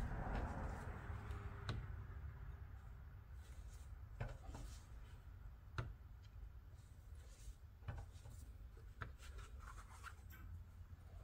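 An awl point scratching and pressing stitch-hole marks along the edge of a leather axe mask on a plastic cutting board, with the leather being handled. There are faint scratching sounds and a few sharp, irregular ticks a second or two apart.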